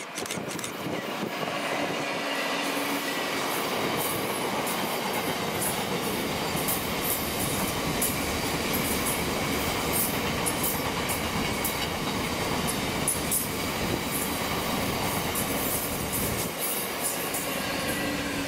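Class 66 diesel-hauled freight train of box wagons passing close by: a continuous rumble of steel wheels on rail, with rapid clicking as the wheels run over the rail joints.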